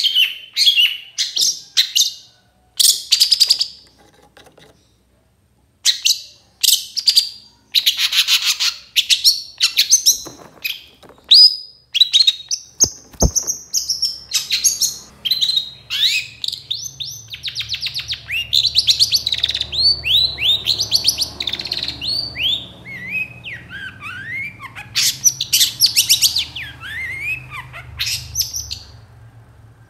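Long-tailed shrike (cendet) calling: rapid runs of harsh, scratchy calls mixed with sharp chirps and short sliding notes, with a pause about four seconds in.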